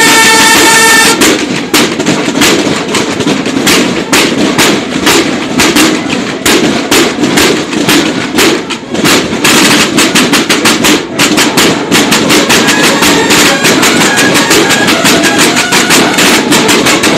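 Marching snare drums of a banda de guerra playing a fast drum cadence of rapid strokes and rolls, after a held bugle note cuts off about a second in.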